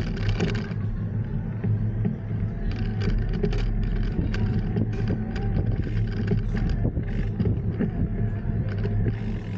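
Steady low rumble of a bicycle ride over brick paving, with frequent small clicks and rattles.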